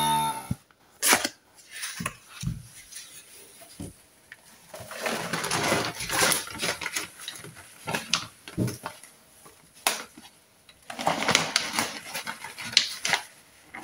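Plastic vacuum-sealer bag crinkling and fresh parsley rustling as handfuls are pushed into the bag, with a few sharp clicks. The crinkling comes in two longer stretches, near the middle and near the end.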